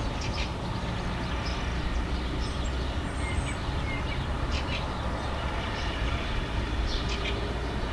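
Field-recorded ambience: a steady low rumble with faint, scattered bird chirps above it.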